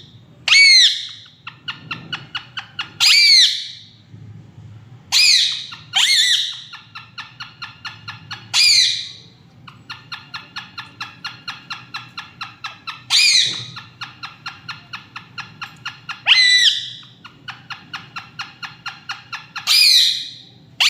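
Pet parrot giving loud, harsh squawks every few seconds, with runs of quick repeated chattering notes, about seven a second, between the squawks.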